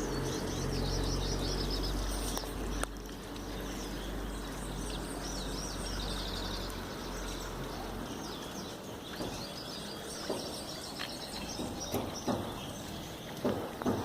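Birds singing in short, rapidly repeated high trills, three phrases in all, over the steady rush of a river's flowing water. A low hum lies under the first half and fades out, and a few sharp knocks come near the end.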